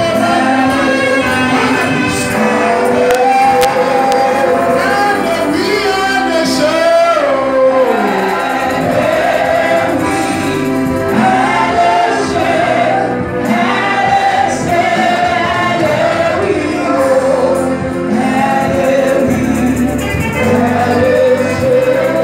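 Live gospel praise singing by a group of worship singers at microphones, with musical accompaniment.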